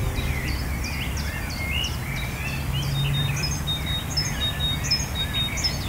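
Several songbirds singing, many short chirps and trills overlapping, over a steady low background rumble.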